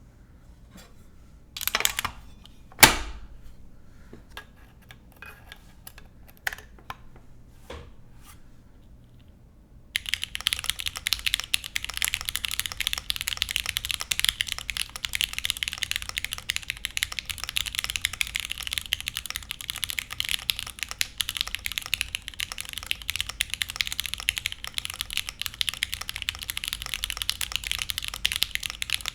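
Mechanical keyboard with lubed Gateron X linear switches in a gasket-mounted aluminium plate and no foam: a few separate clicks and knocks at first, then continuous fast typing from about ten seconds in. The typing sounds clacky.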